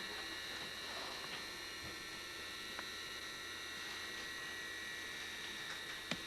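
Steady electrical hum with a thin high whine over a hiss, and one faint click near the end.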